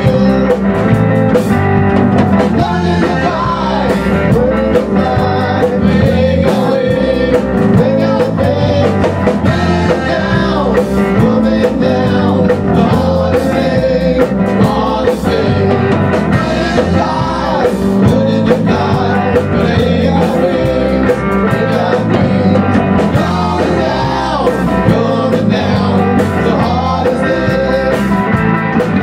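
A rock band playing live: electric guitar, bass guitar and a Tama drum kit, with a male voice singing over them.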